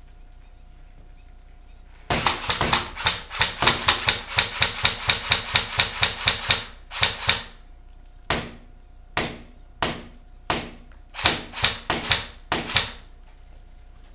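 Airsoft gun firing: a rapid string of sharp shots at about five a second, starting about two seconds in and lasting some four seconds, then a dozen more shots spaced out singly and in pairs until near the end.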